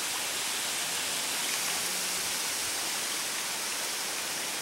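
Babbling brook: water running steadily.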